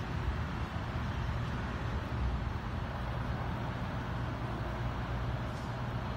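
Steady low rumble of city street traffic, with no single event standing out.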